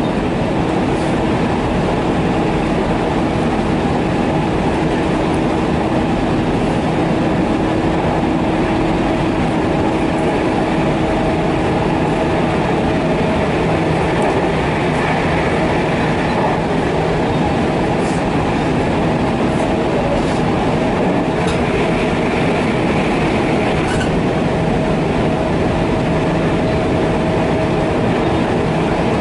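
Tokaido Line New Rapid Service electric train heard from the driver's cab while running at speed: a steady rumble of wheels on rail under a steady motor hum, with a few light clicks over the track in the second half.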